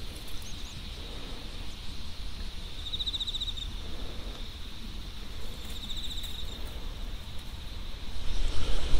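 Insects calling in a rice field: a steady high-pitched shrill, with two short pulsing trills about three and six seconds in, over a low rumble.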